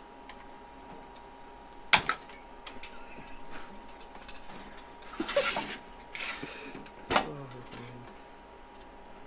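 Metal retaining clips being pried off a plastic car headlight housing with a screwdriver: a few sharp clicks as clips snap free, the loudest about two seconds in and another about seven seconds in, with a short scrape of tool and clip on the plastic in between.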